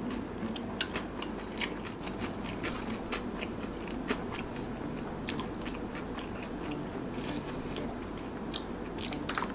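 Close-miked chewing of a mouthful of rice and spicy tripe pekasam, with many small, irregular crisp clicks from the mouth.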